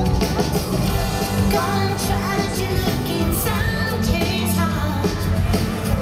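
Live, amplified pop music: a woman's lead vocal sung over the band's backing with a steady bass line.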